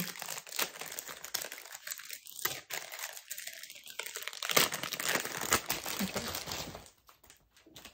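Packaging crinkling and rustling as it is worked open by hand, a dense crackle that stops near the end.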